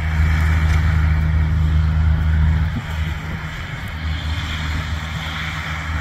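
Engine of a small snow-clearing compact tractor with a front plow blade, running at a steady pitch over a steady hiss.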